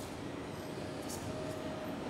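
Railway station platform ambience under a large roof: a steady noisy hum with a faint steady tone that becomes clearer about a second in.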